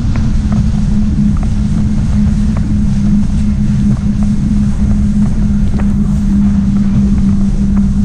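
Jet ski engine running steadily while under way, one unchanging drone over a low rumble, with wind on the microphone.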